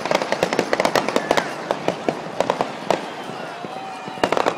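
Fireworks going off in a rapid run of sharp pops and bangs, thickest in the first second and a half, then thinning out. Voices rise from the watching crowd.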